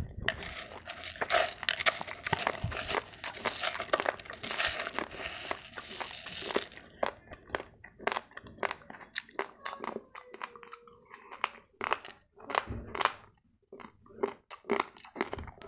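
Raw long-grain basmati rice: dense rustling of dry grains for the first several seconds, then separate sharp crunches as the hard uncooked grains are chewed.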